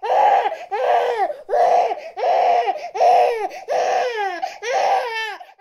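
Baby crying: about seven short wails in a row, each dropping in pitch at its end, the last one breaking into a quavering wail.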